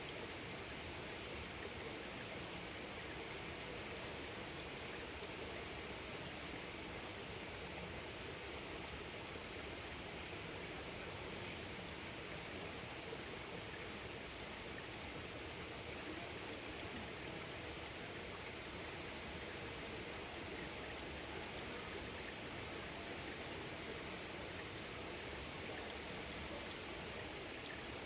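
Stream water flowing steadily: an even, unbroken noise of running water.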